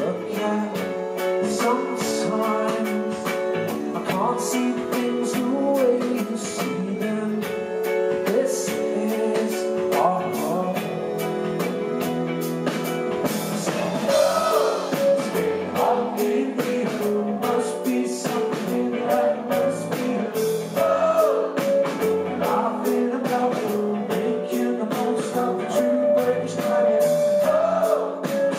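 Live rock band playing: a man singing lead over electric guitar, bass guitar and a drum kit.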